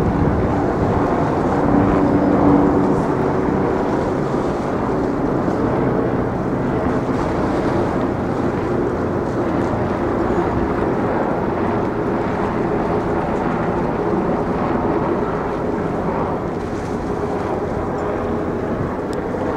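Steady city street noise of vehicle engines running, a low hum with a few held tones, with some wind on the microphone.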